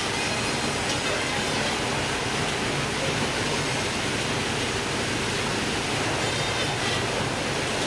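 Steady rushing noise with a low hum beneath it, even in level throughout.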